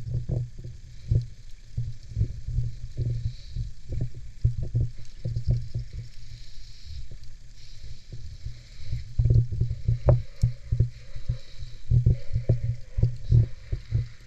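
Muffled underwater sound from a GoPro in a waterproof dome housing in shallow sea water: a steady low rumble of water moving against the housing, broken by many irregular soft knocks and clicks.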